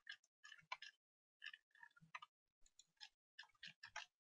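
Faint, irregular clicking of a computer mouse and keyboard: a scatter of small, sharp clicks with gaps between them.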